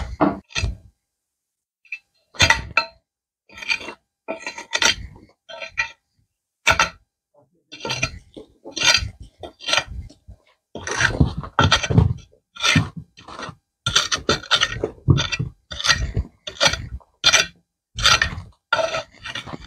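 Metal digging tool striking and scraping into packed earth and brick rubble, digging open a rat burrow: irregular chinks and scrapes, one or two a second, after a short pause near the start.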